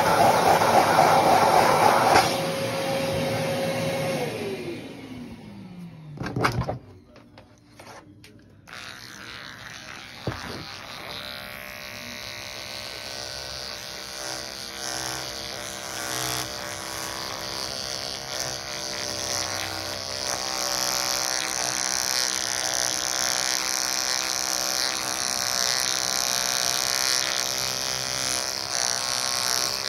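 Electric clippers shaving the pile of a tufted rug: the motor runs, winds down to a stop about five seconds in, and after a short gap with a few clicks buzzes steadily again from about eleven seconds on.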